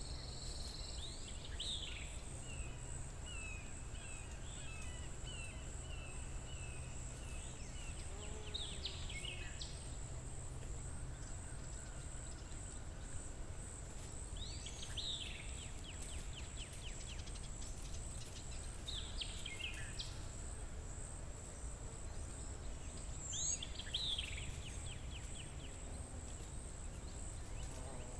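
Natural forest ambience: a songbird repeats the same short phrase about every five seconds, a few quick sweeping notes followed by a fast trill, over a steady high-pitched insect chirring that pulses rapidly. A low rumble sits underneath.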